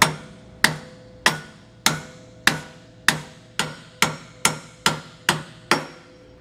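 A hammer striking a steel leaf-spring hanger on a trailer frame, about a dozen sharp blows coming a little faster in the second half, with a faint metallic ring between them. The blows are spreading the hanger apart so a 2-inch spacer will fit.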